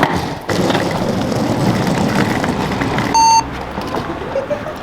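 Car running with a steady rumble, joined by one short electronic beep a little over three seconds in.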